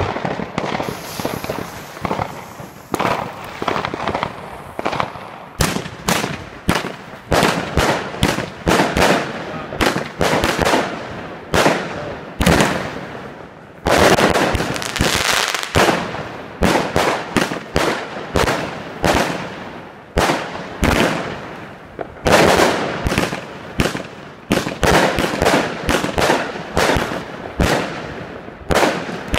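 Weco Black Ice 47-shot, 500-gram firework cake firing: a long rapid series of sharp bangs, about one or two shots a second.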